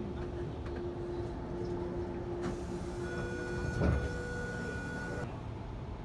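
Sydney electric suburban train heard from inside the carriage as it slows along a station platform: a steady low rumble with a humming tone from the train's electrical equipment that changes to higher steady tones about three seconds in, and a single thump near four seconds in.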